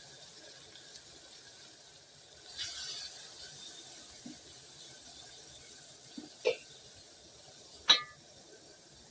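Kitchen handling sounds over a faint steady hiss: a short rush of water or rustle about a third of the way in, then a couple of knocks and one sharp, ringing clink of a utensil or dish near the end.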